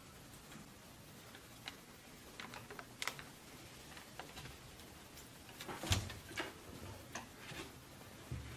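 A baby monkey rummaging in plastic bags on a wooden wardrobe shelf: faint, scattered crinkles and clicks, with a louder knock and dull thump about six seconds in.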